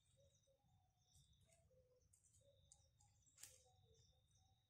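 Near silence in a forest: faint bird calls and a thin, steady high tone, with one sharp click about three and a half seconds in.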